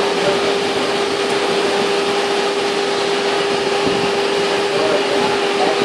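Steady rushing noise with a constant hum underneath, as water runs through a flow meter's pipework.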